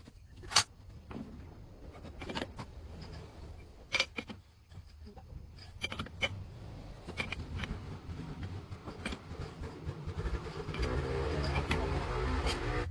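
Scattered sharp clinks and knocks, about seven in all, typical of metal workshop tools and parts being handled, over a low hum that grows louder in the last three seconds.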